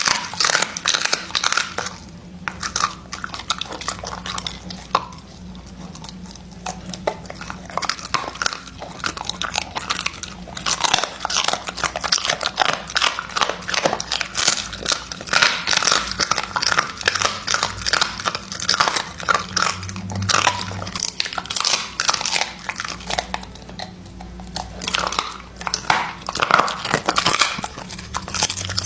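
Close crunching and chewing of chicken feet: crisp, irregular bites and gnawing in dense flurries, easing off for a few seconds now and then.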